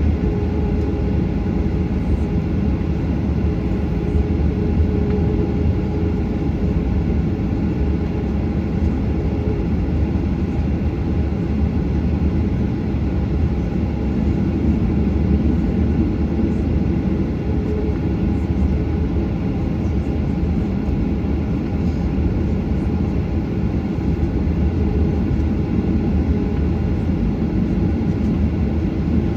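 Steady jet engine and airflow noise heard inside the cabin of a Qantas Boeing 737: a dense, even rumble with a faint steady hum and no change in pitch.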